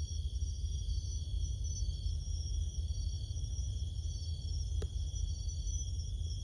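A chorus of night insects, crickets or katydids, trilling steadily and high-pitched over a loud, steady low rumble. A single faint click about five seconds in.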